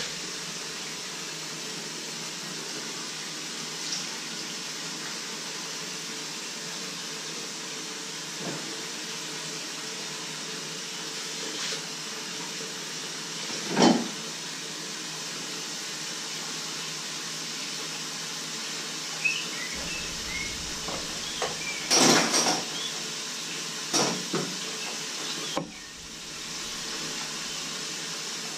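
Kitchen work sounds: a steady hiss underneath, with a few clatters of dishes and pans, the loudest about 14 and 22 seconds in.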